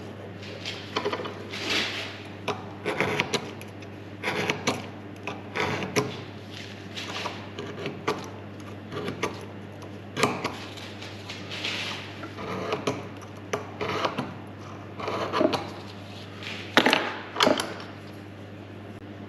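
Hand work on a machined metal part: irregular scraping and rubbing strokes, typical of filing or deburring, with light metallic knocks and clicks, over a steady low hum.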